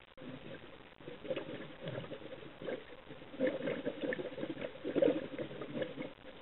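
Underwater bubbling and gurgling from a scuba diver's exhaled breath, rising and falling in irregular surges, with a faint steady hum underneath.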